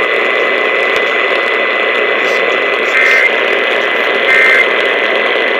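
Radio static hiss with a steady high whistle. About halfway through come short two-tone warbling data bursts of the Emergency Alert System's end-of-message code, two of them a little over a second apart and a third just starting at the end.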